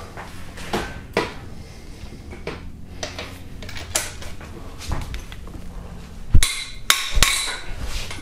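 Cylinder head bolt on a Hyundai/Kia 2.4 GDI engine being loosened with a triple square socket and long breaker bar: scattered metal clicks and knocks of the socket and tool, then a sharp crack about six seconds in as the very tight bolt breaks loose, followed by a few ringing metallic clinks.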